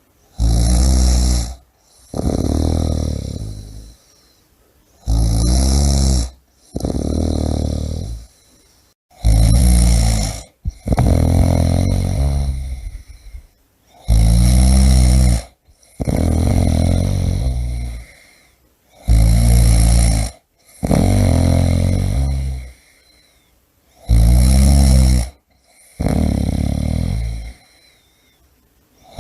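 A person snoring loudly and rhythmically: a low, rasping snore on each breath in, followed by a softer breath out, about one snore every five seconds.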